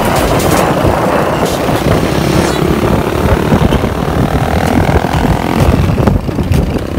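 Yamaha RXT 135 two-stroke motorcycle engine revving as the bike accelerates away, its pitch rising about four seconds in.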